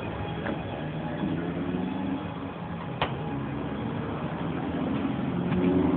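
An engine running with a steady low hum, its pitch shifting slightly and its level rising near the end, with a single sharp click about halfway through.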